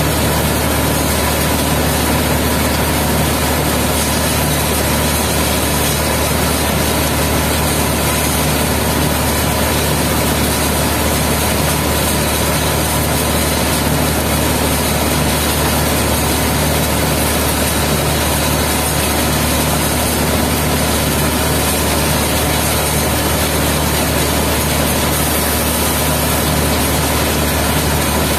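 Asphalt mixing plant machinery running: a loud, steady mechanical drone with a strong low hum.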